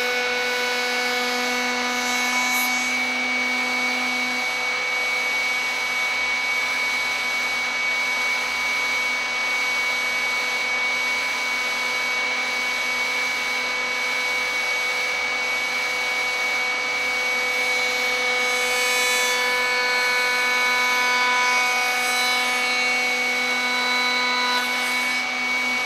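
Table-mounted router running with a steady whine while its Freud drawer lock bit cuts a drawer joint profile into wood stock being fed past it.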